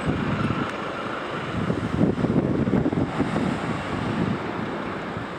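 Wind buffeting the microphone in uneven gusts over the noise of road traffic.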